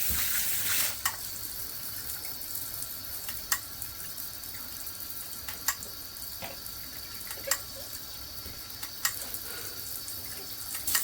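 Water spraying steadily from a filtered handheld shower head, a steady hiss with sharp drips or splashes every second or two.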